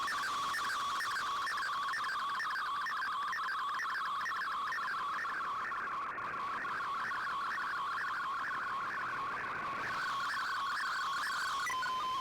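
Slow-scan television (SSTV) image signal received over shortwave radio: a steady tone with a rapid, evenly repeating warble above it, each sweep one scan line of a picture. Shortly before the end the warble stops and a single steady tone remains.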